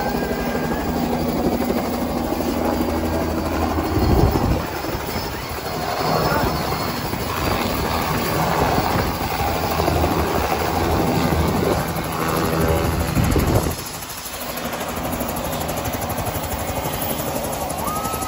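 Helicopter running close by, loud and steady. A rougher, noisier stretch starts about four seconds in and lasts until about fourteen seconds, then the sound steadies again.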